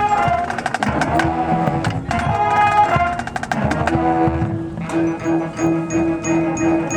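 Marching band playing: sustained ensemble chords over percussion hits, changing about four seconds in to a repeated pulsing note, about three a second, with a light high tapping in time.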